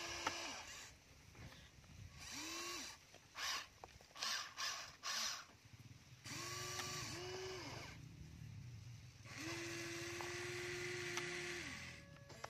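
Small electric motors of a Huina RC toy excavator whining in short runs as the boom and bucket move, each run rising in pitch as it starts and dropping as it stops. Several short noisy bursts come in the middle, and one longer run of about two and a half seconds comes near the end.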